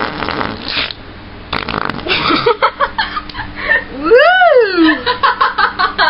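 A person making fake fart noises, a buzzy blast lasting about a second and then a shorter one, followed by laughter and a rising-and-falling "woo!".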